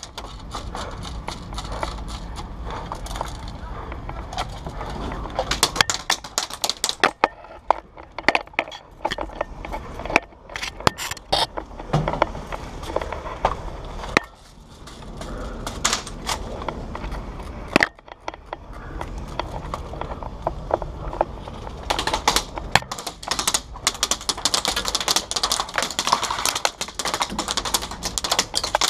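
Airsoft guns firing in rapid clattering runs of clicks and scattered single sharp snaps. The shots come in irregular spurts and are busiest in the last several seconds, over a steady low rumble.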